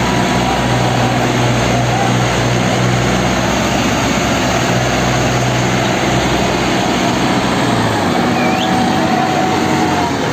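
Tractor diesel engines running steadily while hauling a loaded sugarcane trolley. The low engine note weakens about eight seconds in.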